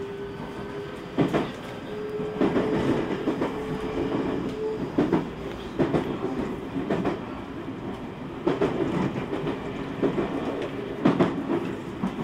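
Inside a JR Special Rapid Service electric train running at speed: a steady rumble from the running gear, with the wheels knocking sharply over rail joints roughly once a second. A faint whine steps up in pitch about two seconds in and stops near five seconds.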